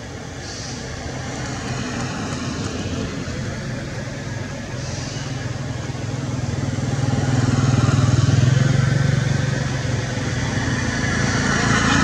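A motor vehicle engine running steadily with a low hum, growing louder to a peak about eight seconds in, easing off, then louder again near the end.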